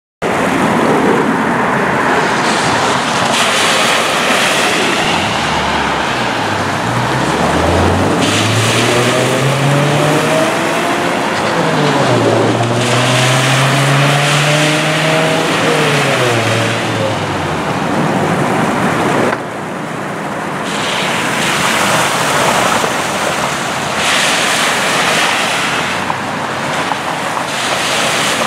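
Water from a broken water main gushing up through a flooded street, a steady rushing noise. Through the middle, vehicles drive through the flood water, an engine's pitch rising and then falling as it passes.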